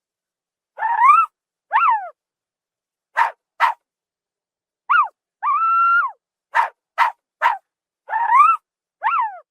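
Zebra barking: a series of short, high, yelping calls, some rising and some falling in pitch, with one held longer about five and a half seconds in. Short breathy gasps fall between the calls.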